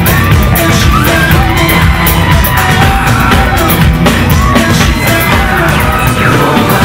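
Loud pop music with a steady drum beat and a singing voice.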